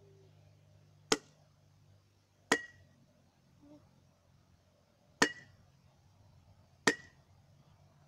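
Four sharp blows of a mallet on the mouth of a water-filled glass bottle, each with a brief glassy ring, spaced a second or more apart. The blows drive a pressure pulse through the water to try to crack out the bottle's bottom.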